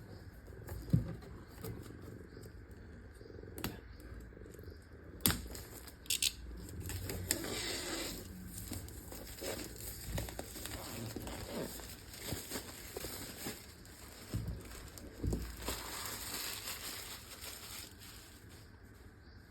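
Keyboard packaging being unwrapped and opened by hand: crinkling and tearing of wrapping, with scattered knocks and clicks as the box is handled.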